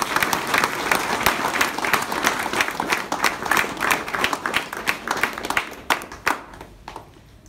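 A small group of people applauding by hand, thinning to a few last separate claps about six seconds in, then dying away.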